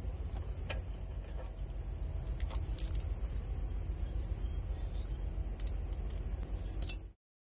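Light metallic clinks and taps of small metal parts being handled, about half a dozen scattered over several seconds, over a steady low rumble. The sound cuts off abruptly near the end.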